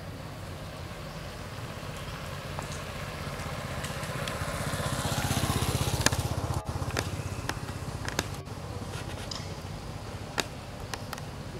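A motorbike passes along the road, its engine growing louder to a peak about six seconds in and then fading, with a few sharp clicks.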